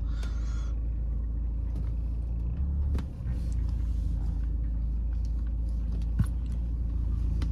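Car's steady low engine and road rumble as it is backed up and manoeuvred at low speed, with a couple of faint clicks.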